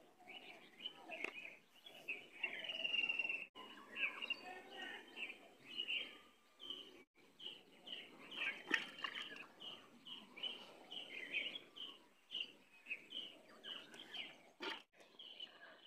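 Small birds chirping in the open, short high chirps repeated in quick succession over a low outdoor background, with a couple of sharp knocks.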